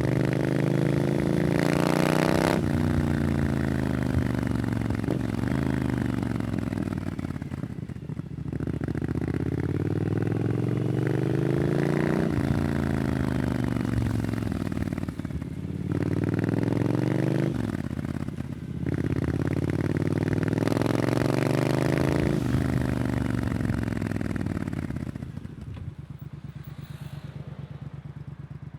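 Triumph Scrambler 900's parallel-twin engine through an Arrow exhaust, rising and falling in pitch several times as the bike accelerates and eases off through gear changes. It drops to a quieter, steady low run near the end.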